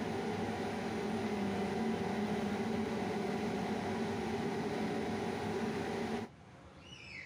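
Shoe-repair finishing machine with its sanding drums spinning, a steady motor hum that cuts off suddenly about six seconds in.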